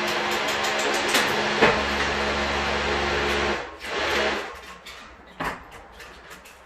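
A motor-driven machine running steadily, then stopping about three and a half seconds in, followed by a brief burst and a few knocks.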